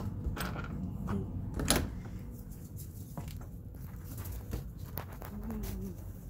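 Scattered knocks and clicks over a low rumble, with one louder knock nearly two seconds in.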